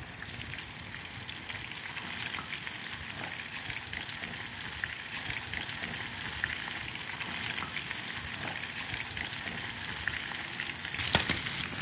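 Flour-dredged chicken pieces shallow-frying in vegetable oil at about 340 °F in a cast iron skillet: a steady sizzle full of fine crackling, rising a little in level. One sharp click near the end.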